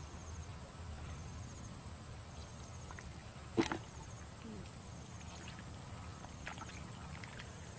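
Insects buzzing steadily at a high pitch with faint repeating chirps, over low sloshing of bare feet and hands moving through wet pond mud. One short sharp sound stands out about three and a half seconds in.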